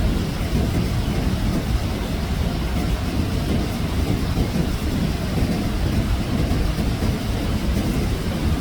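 Loud, steady rushing of water, deepest in the low end, with no let-up: heavy rain or flooding water.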